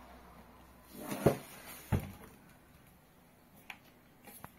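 Xiaomi Smart Air Fryer Pro 4L being handled on a table: a short rustle runs into a sharp knock about a second in, and a second knock follows half a second later. A few faint light clicks come near the end.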